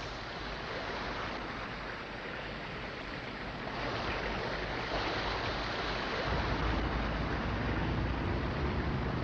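Water washing and churning against the hull of the Windermere cable ferry as it is hauled across the lake on its cable. About six seconds in, a low rumble joins and stays.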